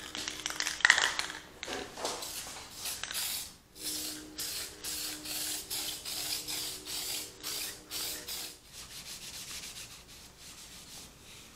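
A few knocks as an aerosol can is handled, then the can spraying in a run of short hisses, about two or three a second, onto a wooden block, followed by softer rubbing as a rag wipes the wood.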